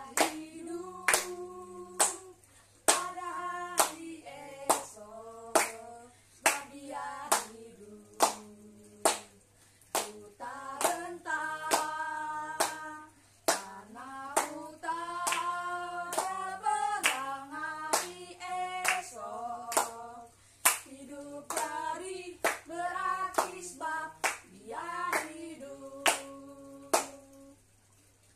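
A song sung with no instruments, with hand claps keeping time about once a second.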